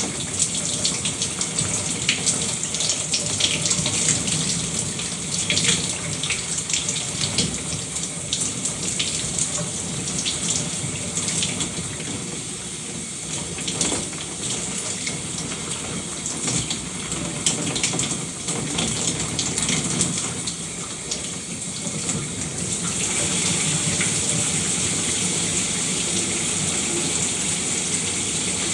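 Shower running: water spraying and splattering irregularly, changing about three-quarters of the way through to a smoother, steadier hiss.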